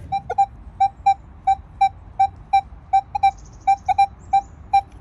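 Minelab Manticore metal detector giving short, identical mid-pitched beeps, about three a second, as its coil sweeps back and forth over a buried target that reads 77 on the screen: a nice crisp target tone.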